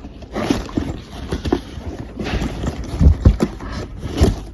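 A sneaker and its packaging being handled: irregular knocks and thumps with some rustling, the loudest a few knocks about three seconds in and one near four seconds.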